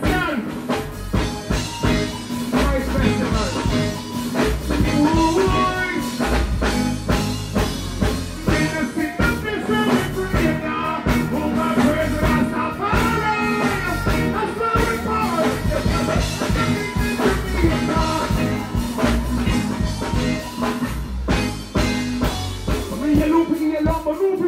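Live band music with drums and bass and a regular beat, with a singer's voice over it.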